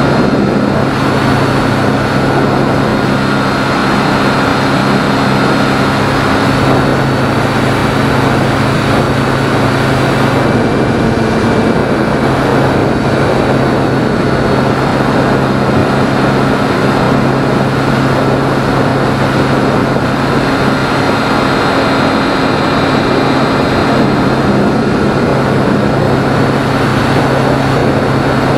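Electric motor and propeller of a Phoenix 2000 RC powered glider running steadily, heard from its onboard camera, with wind rushing over the airframe. The motor's whine holds an even pitch throughout.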